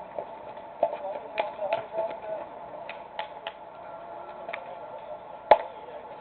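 Faint scattered clicks and distant voices, then one sharp crack of a baseball impact about five and a half seconds in.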